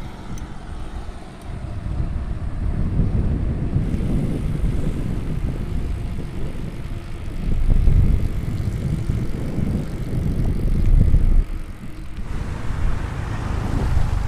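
Wind and road rumble from a bicycle being ridden, picked up by the microphone, swelling and dipping in gusts. The character of the rumble changes about twelve seconds in.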